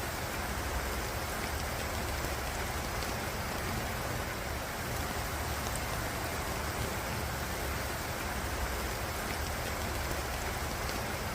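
Steady heavy rain falling, an even hiss with a low rumble underneath.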